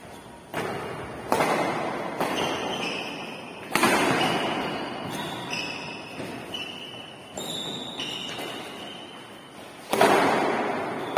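Badminton rackets striking a shuttlecock in a rally, a string of sharp smacks about every second or so, each ringing on in the echo of a large bare hall.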